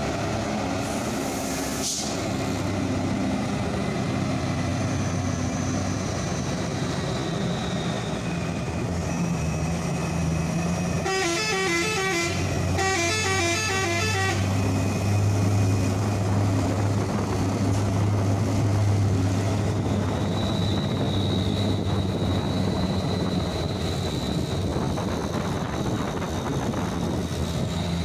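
Heavy trucks' diesel engines running past on the road, their low drone swelling in the middle. About eleven seconds in, a multi-note musical truck horn plays two short bursts of rapidly alternating tones, each lasting about a second and a half.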